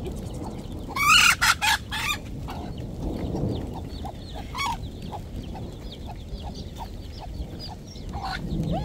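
Chickens clucking and peeping, with a loud burst of clucks about a second in and many short calls scattered through the rest.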